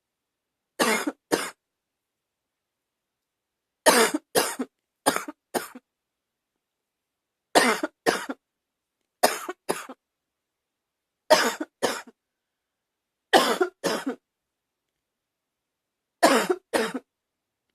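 A person's slightly barky cough, coming in short bouts, mostly two quick coughs at a time and once four in a row, about every two seconds, with silence in between.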